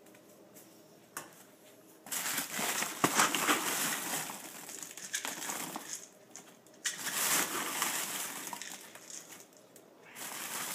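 A plastic bag of dry cat food crinkling and rustling as it is handled and scooped from, in several bursts that begin about two seconds in.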